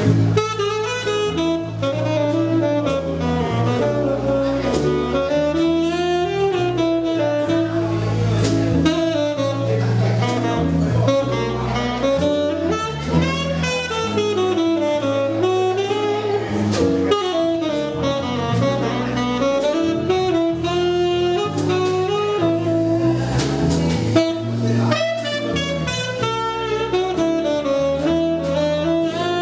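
Live jazz band with a tenor saxophone playing the lead line, wavering with vibrato, over guitar, bass and drum accompaniment.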